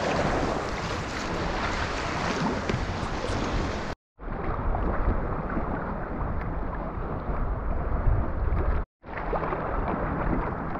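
Sea kayak under paddle: water splashing and rushing along the hull with wind buffeting the microphone. The sound drops out twice for a moment, about four and nine seconds in.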